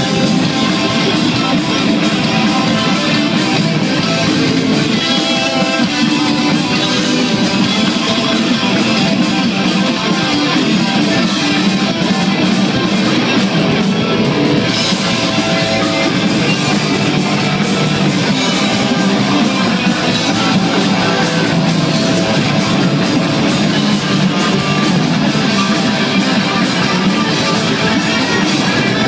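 Live heavy metal band playing loud: several electric guitars played together over drums, a dense, continuous wall of sound.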